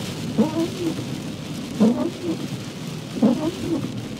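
Windscreen wipers sweeping a rain-soaked windscreen, three passes about a second and a half apart, each with a thump and a rubbery squeak that rises and falls. Under them is a steady hiss of heavy rain and wet road noise inside the car.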